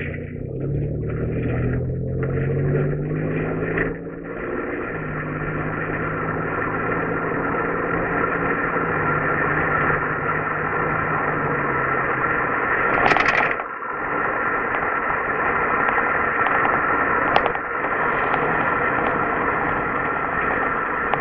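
Pontiac Grand Prix GT's 3.8-litre V6 starting and then idling steadily through dual Flowtech Raptor aftermarket mufflers. There is a short burst of noise about thirteen seconds in, then a brief dip.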